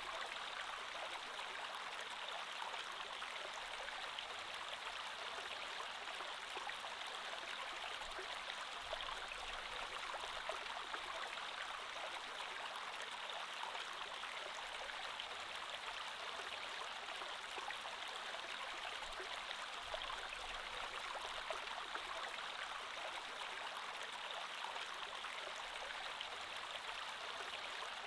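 Creek water flowing steadily over rocks, a continuous burbling rush.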